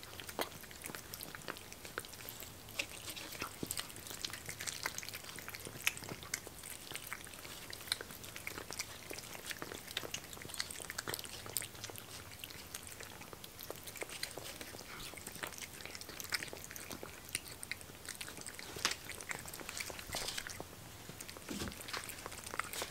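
Three cats eating wet food side by side from plates: a close, continuous run of small chewing clicks.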